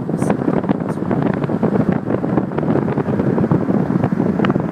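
Wind buffeting the microphone, a loud rough rumble with scattered crackles.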